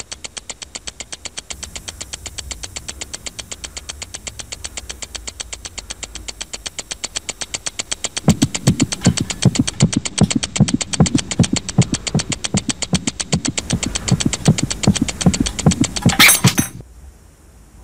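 Background electronic music: a fast, steady ticking beat, with a pulsing bass line coming in about halfway. A whooshing sweep near the end, then the music cuts off.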